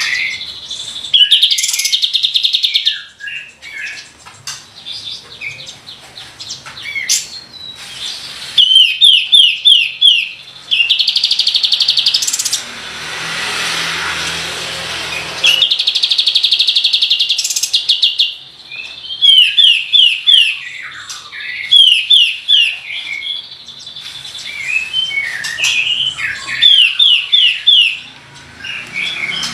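Kapas tembak (cream-vented bulbul) singing hard: short runs of quick falling whistled notes alternating with loud, very fast rattling trills, repeated again and again. A brief rushing noise sits under the song around the middle.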